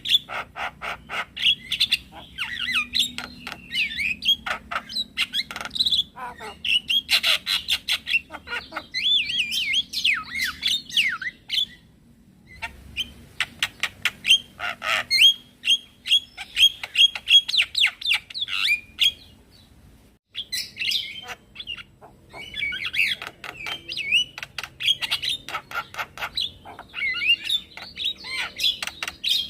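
Male Javan myna (jalak kebo) singing: a fast, busy run of clicking and chattering notes mixed with whistled glides, broken by short pauses about twelve and twenty seconds in.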